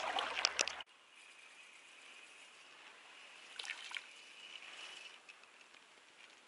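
A few sharp clicks and knocks, then the sound cuts off suddenly to quiet outdoor ambience: a faint steady high hiss with a couple of soft clicks about four seconds in.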